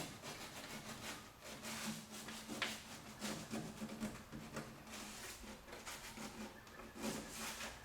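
Irregular, faint rubbing and scuffing strokes of hand sanding on a plastic wheel flare, roughing up the surface so the plastic filler will stick.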